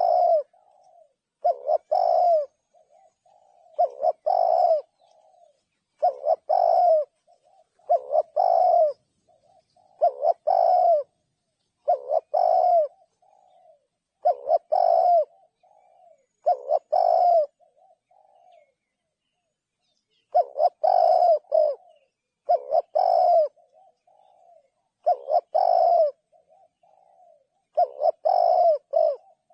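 Spotted dove cooing: the same short phrase, a few soft notes leading into a louder coo, repeats about every two seconds, with a brief pause about two-thirds of the way through.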